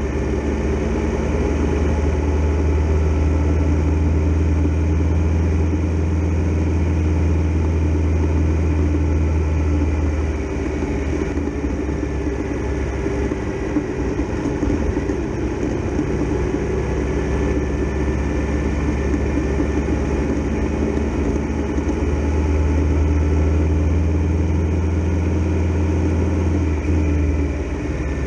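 Triumph Tiger Explorer XRx motorcycle engine running as the bike rides along. Its strong low note eases off about ten seconds in and comes back strongly from about twenty-two seconds.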